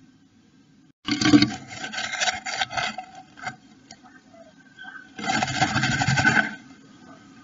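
Blue tit scrabbling in the moss and hair of its nest inside a wooden nestbox. A loud scratchy clatter as it lands about a second in is followed by intermittent scratching, then a dense rustling for over a second near the end as it shuffles round in the nest cup.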